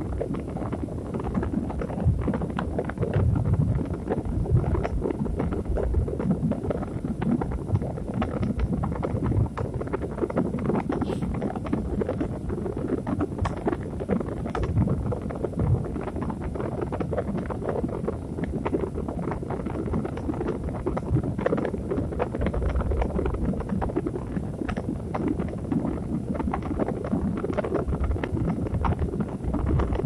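Steady ambient noise track played as a sleep sound: a dense low rumble with a constant fine crackle over it, holding an even level throughout.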